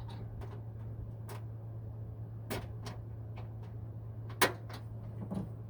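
Scattered light clicks and taps of bolts, nuts and a mounting bracket being handled as the bolts are threaded in finger tight, with one sharper click about four and a half seconds in. A steady low hum runs underneath.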